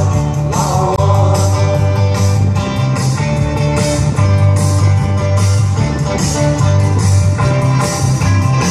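Rock music with guitar, bass and a steady beat.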